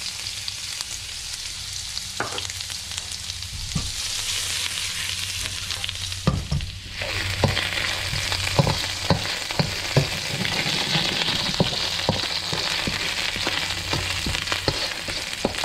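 Beef and vegetable stir-fry sizzling steadily in a hot wok. From about halfway, cooked ramen noodles go into the wok and frequent clicks and knocks of utensils come through the sizzle.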